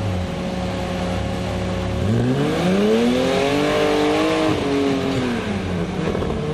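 Unimog 404 S trial truck's engine running steadily, then revving hard about two seconds in as the truck climbs over boulders. It holds high revs for a couple of seconds, then falls back near the end.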